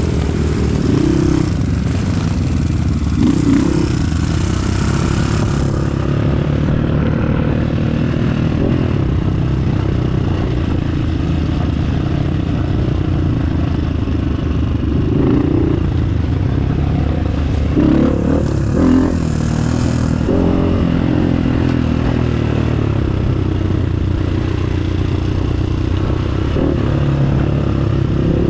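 Off-road trail motorcycle engine running under way, its pitch rising and falling briefly a few times as the throttle is worked, with rattling from the bike over rough ground.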